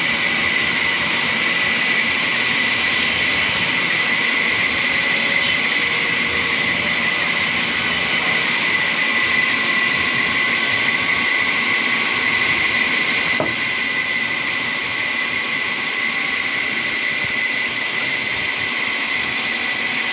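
Sawmill saw running steadily, a constant high whine over hiss. There is a click and a slight drop in level about two-thirds of the way through.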